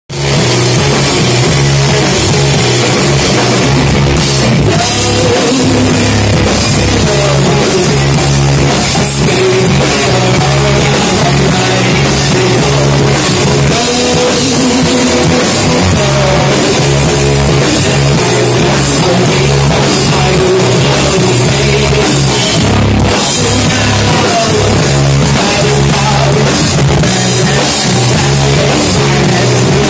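Heavy rock band playing live, loud and steady: drum kit, bass and distorted guitars.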